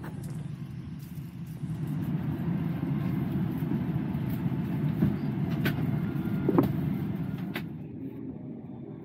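Steady low rumble of an airliner cabin's ventilation during boarding, with a few light clicks and knocks in the middle.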